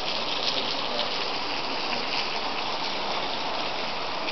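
Warm spring water splashing and trickling steadily down rocks into a pool.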